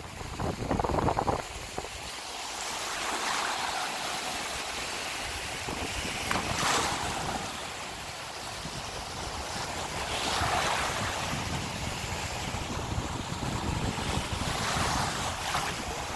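Small waves breaking and washing up onto a sandy beach, the hiss of the wash swelling every few seconds. Wind buffets the microphone throughout.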